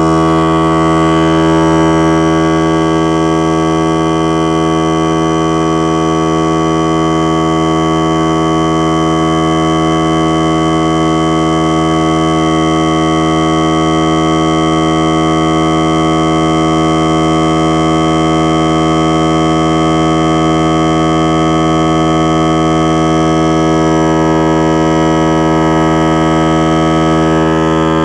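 Central Pneumatic 3-gallon, 1/3-horsepower electric air compressor running loudly and steadily with a constant mechanical hum and buzz, pumping air into its tank.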